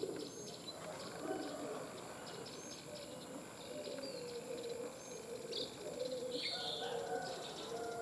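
Birds calling: low, wavering cooing notes again and again, with short high chirps above them, over a steady high-pitched whine.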